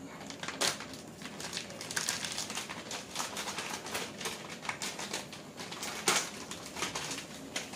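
Plastic packaging crinkling and rustling, with many irregular small clicks, as a packet of plastic grille stripe inserts is handled and opened. A sharper click comes a little after six seconds in.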